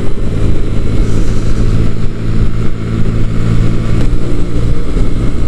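125cc motorcycle engine running steadily at a cruising speed of about 44 mph, with wind rushing past. About four seconds in, the engine note shifts slightly.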